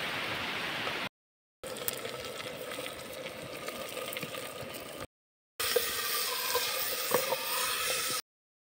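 Stream water running for about a second, then, after two short silent cuts, chopped tomato sizzling and crackling in a hot clay pot over a wood fire as it is tipped in and stirred.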